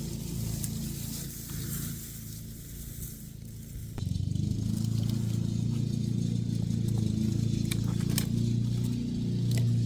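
A motor engine running steadily at a low pitch, getting clearly louder about four seconds in, with a few light rattles and clicks.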